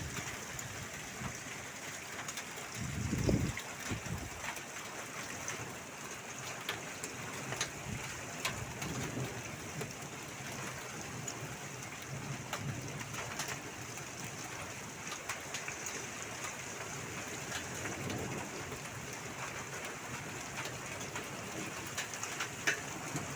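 Steady rain falling, with scattered drops striking hard, and a short low rumble about three seconds in.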